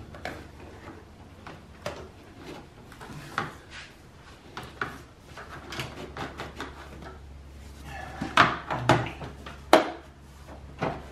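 Hard plastic air-intake ducting being handled and pressed into place in a Mercedes W212 E350's engine bay: scattered clicks and knocks, with a cluster of louder knocks about eight to ten seconds in. A steady low hum runs underneath.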